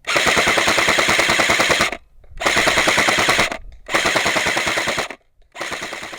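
Gunslinger AK47 airsoft electric gun (AEG) firing on full auto in four bursts, each a rapid, even string of shots. The first burst is the longest, about two seconds, and the last is the shortest.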